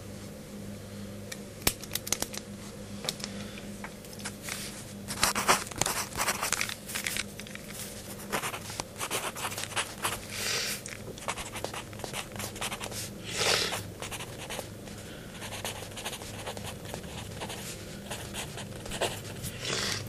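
A BIC mechanical pencil with a turquoise clip writing on lined notebook paper: irregular scratchy strokes of the lead across the page, over a steady low hum.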